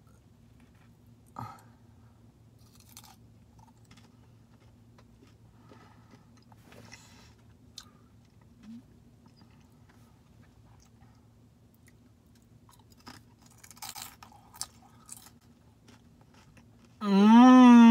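Chewing and a few faint crunches of nacho tortilla chips being eaten, over a faint steady hum. Near the end a loud drawn-out vocal sound comes in, rising a little and then sliding down in pitch.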